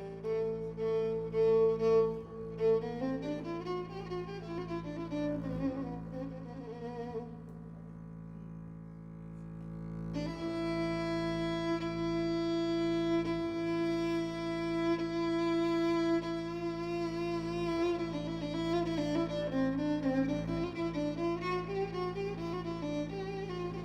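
Violin playing an Arabic song melody, sliding between notes over a steady low accompaniment. It softens midway, then holds a long, rich note from about ten seconds in before the melody moves again.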